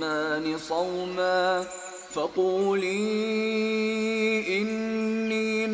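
Melodic Quran recitation: a single voice chanting in drawn-out, ornamented notes, settling about halfway in into one long held note.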